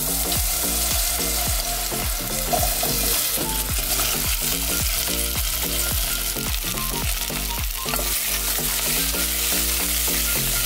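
Cubed potatoes sizzling steadily in hot garlic oil with shallot in an aluminium saucepan as they toast, stirred near the end. Background music with a steady beat plays underneath.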